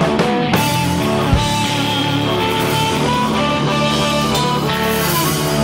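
Blues-rock band music: electric guitar with drums and cymbals, in an instrumental stretch without singing.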